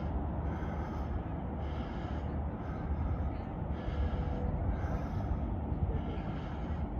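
Wind buffeting the microphone with a steady low rumble, and heavy breathing close to the mic, about one breath a second.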